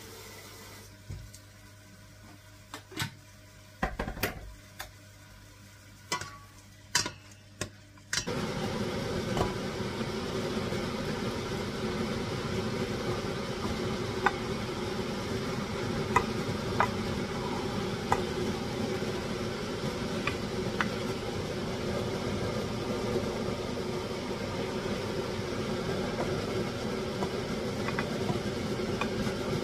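A few light knocks and clicks of kitchen utensils, then, about eight seconds in, the steady noise of a large steel pot of curry boiling on the stove, with occasional taps of a spatula against the pot as vegetables are stirred in.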